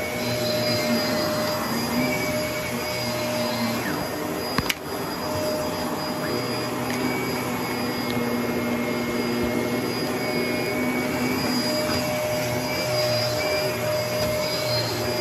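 Upright vacuum cleaner running on carpet, a steady motor hum with a high whine over the rush of air. A single sharp click comes about four and a half seconds in.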